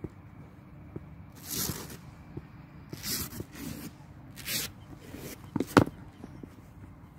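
Cricket bat striking the ball: one sharp crack about three-quarters of the way through, the loudest sound, with a smaller knock just before it. Several short scuffing hisses come earlier.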